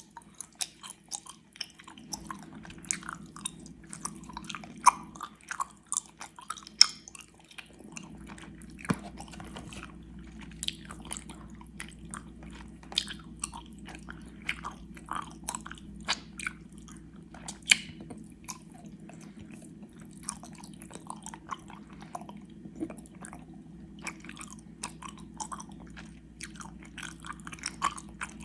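Close-up chewing of gummy worms: irregular wet, sticky mouth clicks and smacks from chewing the gummy candy, with a few sharper snaps. A faint steady hum runs underneath.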